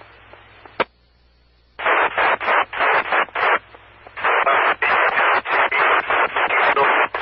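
FM amateur radio repeater audio: a low hum, a sharp click just under a second in, then loud static noise that chops on and off rapidly as the receiver opens on a noisy signal.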